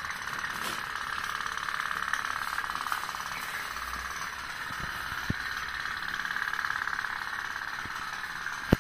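Tin pop-pop boat (candle-heated putt-putt boat) running on water, its little steam engine making a steady, rapid putt-putt. There is a sharp click near the end.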